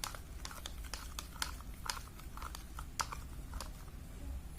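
Light, irregular clicks and taps of a utensil against a small dish as lime juice is stirred into sweet soy sauce (kecap).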